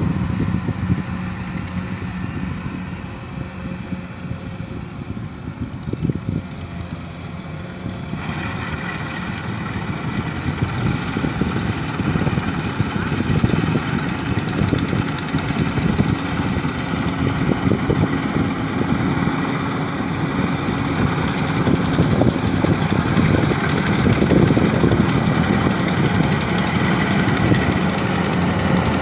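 An engine running steadily. About eight seconds in, a broad mechanical noise joins it, and the whole sound slowly gets louder.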